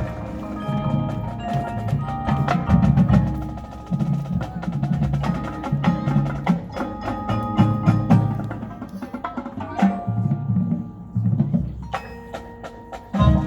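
Marching band percussion playing a passage: pitched mallet and chime notes with sharp struck hits over low sustained notes, the music thinning out twice and coming back with a loud hit near the end.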